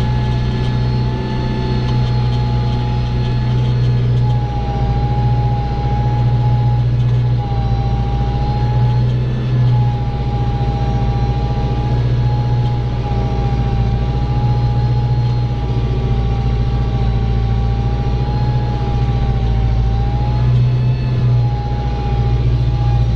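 Farm tractor's diesel engine running steadily under ploughing load, with a high wavering whine over the low engine note.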